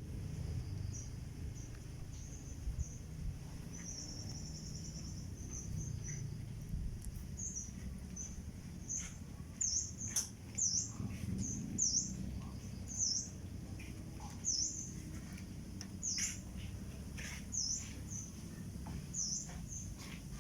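A bird calling outdoors with short, high, dipping chirps repeated about once a second, after a brief buzzy trill a few seconds in, over steady low background noise.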